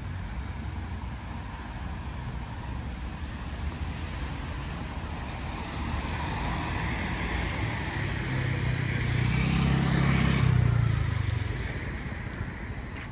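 A car passing along a wet street, growing louder to a peak about ten seconds in and then fading, over a steady low rumble of traffic.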